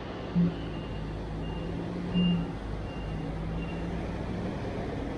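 Street traffic with buses and cars running: a steady engine hum and road noise, with two brief louder swells about half a second and two seconds in. A faint high beep repeats several times through the first few seconds.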